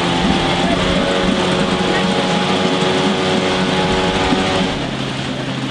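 Outboard motor of an inflatable dinghy running steadily at speed. About four seconds in, its note drops lower.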